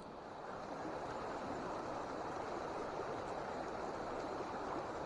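Small mountain stream flowing: a steady water noise that grows slightly louder about half a second in.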